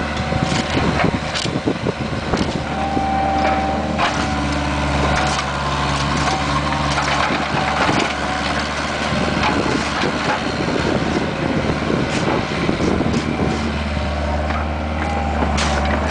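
Bobcat 430 ZHS mini excavator running steadily, with irregular scraping and cracking as the bucket rips up asphalt.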